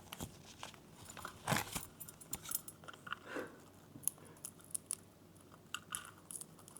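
Scattered light clicks and taps of grey-breasted parakeets climbing into a bird carrier, their beaks and claws on it as they go after treats.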